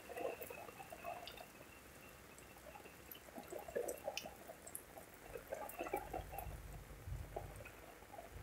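Heavy rain falling, with irregular close drips, plus a low rumble in the second half.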